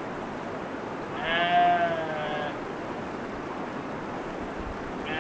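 A goat bleating: one drawn-out call lasting about a second and a half, falling slightly in pitch, with a second, fainter bleat starting just at the end.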